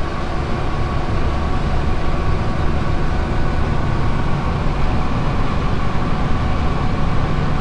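Gleaner S77 combine running steadily while harvesting corn, heard from inside the cab: a constant low drone with a faint steady whine above it.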